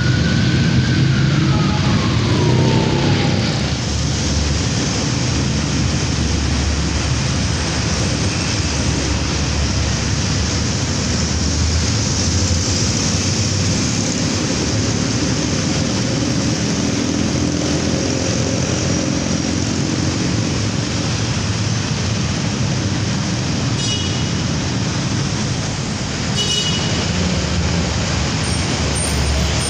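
Steady road traffic noise with a low rumble of passing vehicles. In the first few seconds a siren's tone slides down in pitch and fades away.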